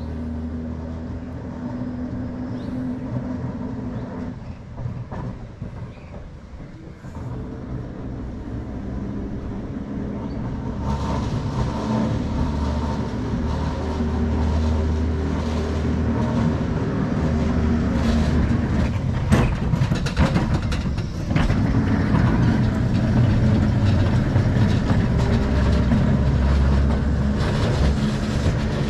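Double-deck electric tram running on street rails as it approaches and passes: a steady low rumble that grows louder as it comes near, with a run of sharp clicks from the wheels on the rails about two-thirds of the way through.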